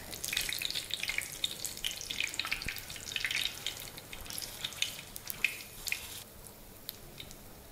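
Batter-coated stuffed green chillies (mirchi bajji) deep-frying in hot oil: steady sizzling with many small crackles and pops, thinning out after about six seconds.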